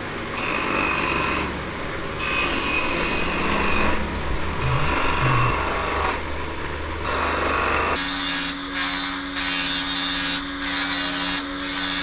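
Small electric motor-driven grinding wheel shaping the edge of a wooden knife handle, a continuous gritty grinding over the motor's hum. About eight seconds in the sound changes and a steady low hum comes forward.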